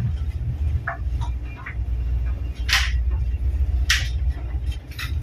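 Low steady rumble of the tugboat's diesel engines, heard inside the wheelhouse. Two brief sharp noises come about three and four seconds in.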